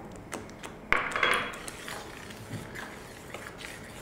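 Kitchen utensils clinking against a steel pan while spices are added to spinach gravy: a sharp knock about a second in, followed by a short scrape, with a few light ticks after.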